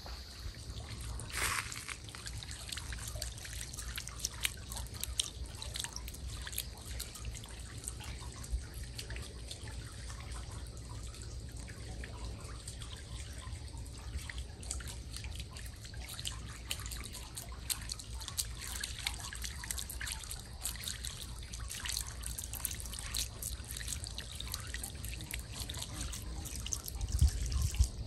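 Small solar-powered fountain spraying water that falls back into a glass bowl: a steady trickle with many small, quick drips and splashes. A low steady rumble sits underneath.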